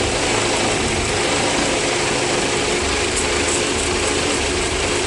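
Car engine idling with a steady, fast mechanical clatter. It is running rough, with the random multiple misfires (code P0300) that the vacuum-leak check is chasing.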